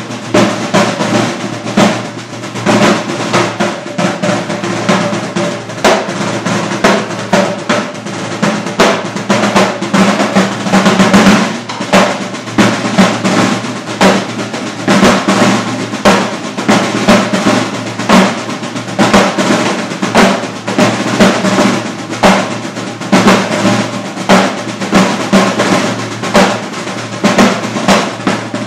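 Three ECO Tom bucket drums (recycled plastic buckets fitted with drumheads and carried like marching drums) played together with sticks in a drum-corps style cadence. It is a loud, fast, continuous stream of strokes with no breaks.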